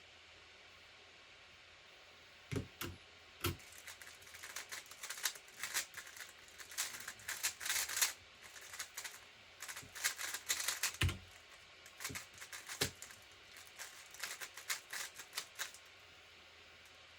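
Plastic 3x3 speedcube, the QiYi X-Man Tornado V3, turned very fast: a rapid clatter of layer turns in bursts, with a few soft thumps near the start and once about 11 seconds in.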